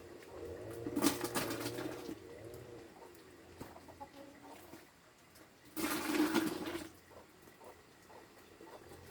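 Low, wavering bird calls, with two louder bursts of noise about a second in and again about six seconds in.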